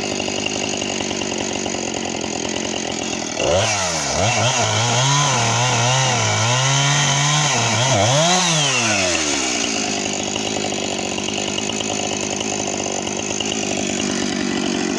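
Husqvarna 460 Rancher two-stroke chainsaw running at high revs. About three and a half seconds in, its pitch drops and wavers for around six seconds as the chain cuts into a log under load, then it climbs back to a steady high speed.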